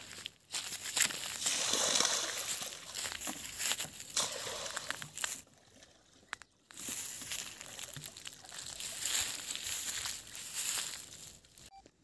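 Water sloshing and splashing as a bucket is dipped into a pond, in two stretches of several seconds with a short pause between.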